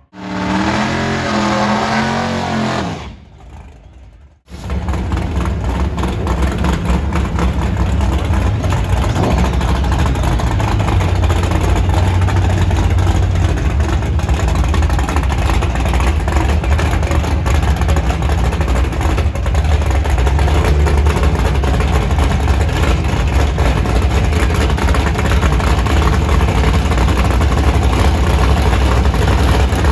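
Loud drag-racing car engine: it revs with the pitch climbing for the first few seconds, drops away, then from about four and a half seconds in runs as a loud, steady, deep rumble.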